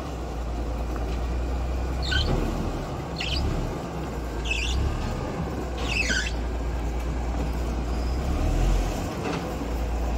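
Crawler bulldozer's diesel engine running with a steady low drone as the machine moves on its tracks. Four short, high squeals sound about two, three, four and a half, and six seconds in.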